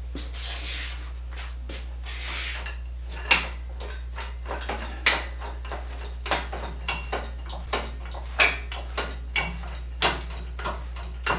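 Metal clanks and knocks, about a dozen irregular strikes, with two short scrapes in the first few seconds, as a steel bar is worked against an antique lathe and its machine skates to lever it up. A steady low hum runs underneath.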